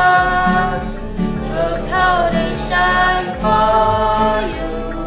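Singing in long held notes with sliding pitch, to an acoustic guitar being strummed.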